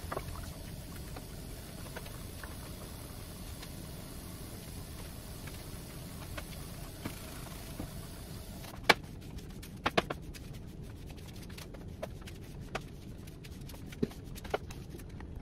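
Kitchen cleaning noises: a steady low hum with scattered sharp knocks and clicks of household items being handled, thickest in the second half, the loudest about nine and ten seconds in.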